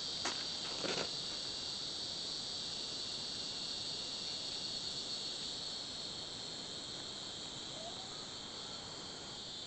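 Steady, high-pitched chorus of crickets at night.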